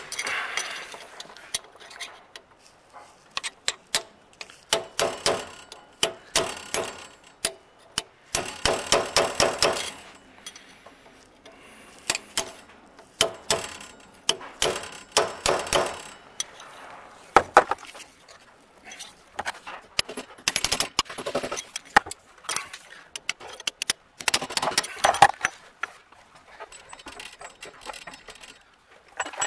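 A wrench ratchets on the bearing-cap bolts of a 1948 Chevrolet torque-tube U-joint. It clicks in repeated quick bursts of a second or two, with sharp single metal clinks in between.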